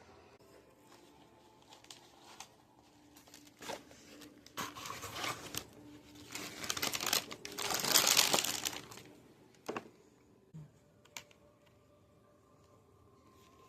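Paper food wrapping being crinkled and torn open in a run of rustling bursts, loudest about two-thirds of the way through, followed by a couple of short sharp clicks.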